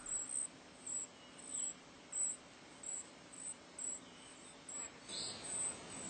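Short, high-pitched chirps repeating irregularly, about two a second, faint over quiet forest ambience.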